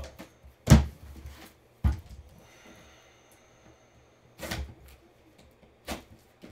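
Cardboard trading-card box handled and set down on a padded table mat: a few separate dull thumps, the loudest about a second in.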